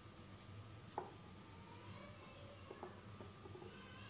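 A cricket chirping steadily in rapid, even pulses, high-pitched, with a few faint soft sounds of hands rubbing a crumbly flour-and-milk-powder dough mix.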